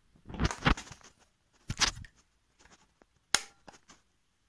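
Footsteps and handling noises: a few short scuffs and knocks in the first two seconds, then one sharp click a little over three seconds in.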